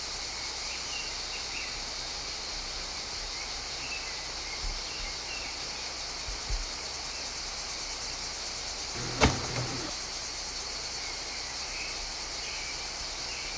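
Steady high hiss of background noise with faint chirps, broken by one sharp knock about nine seconds in, with two soft thumps a few seconds before it.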